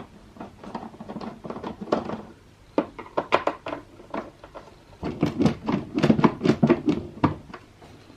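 Hard objects being handled at a workbench: an irregular run of clicks, taps and knocks, sparse at first and thickest about five to seven seconds in, as a screwdriver is picked up and the defibrillator is handled for its teardown.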